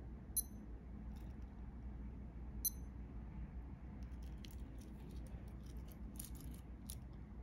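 Casio A168W-1 digital watch beeping twice, a little over two seconds apart, short high beeps as its buttons are pressed, followed by light clicking and rustling of the watch being handled.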